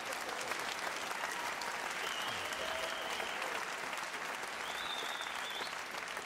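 Theatre audience applauding, a dense wash of many hands clapping.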